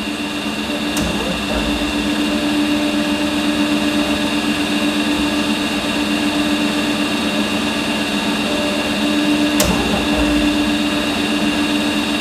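Electro-discharge machine humming steadily as its tool is fed down toward the workpiece before sparking begins. There are two sharp clicks, about a second in and near the end.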